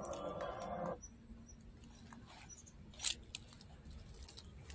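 A bait boat's small electric propeller motors whirring for about a second as it is driven in to the bank, then cutting off. A single sharp click comes about three seconds in.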